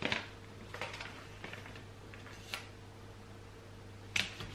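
Soft rustling of a kraft paper envelope being handled, with a few light paper clicks as a sticker is pressed onto it, over a faint steady hum.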